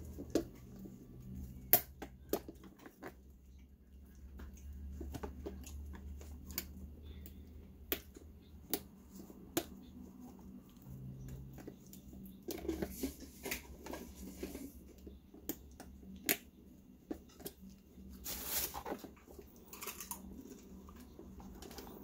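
Handling noise from fitting a metal tube clamp onto plastic tubing inside a coffee maker's plastic housing: scattered sharp clicks and taps of tool, clamp and plastic, with a couple of brief scraping rustles in the second half.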